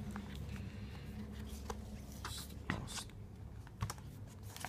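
Packaging being handled: rustling and scratching of the earbook's box and plastic wrap, with scattered small taps and clicks, the sharpest a little under three seconds in.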